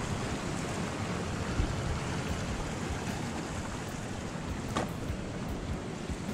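Small mountain river rushing over little cascades: a steady hiss of running water, with one brief click about three-quarters of the way through.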